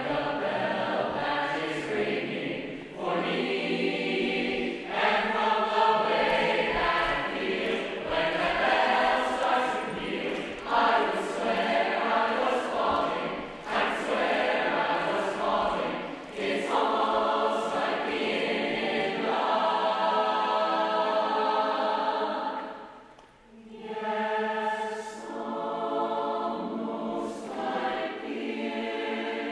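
Mixed choir of teenage singers singing a jazz-standard arrangement, breaking off briefly about three-quarters of the way through and then coming back in.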